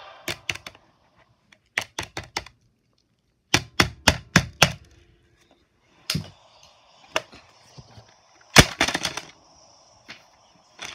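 Hard plastic knocks of a desk calculator being struck to smash it, in bursts of several quick strikes with single knocks between.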